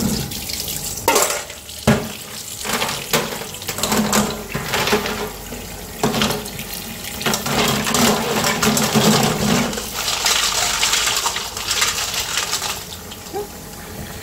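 Kitchen tap running into a stainless steel bowl of live whelks in a steel sink, with many short clacks as the shells are rubbed and knocked together to scrub off slime and dirt. The water is quieter near the end.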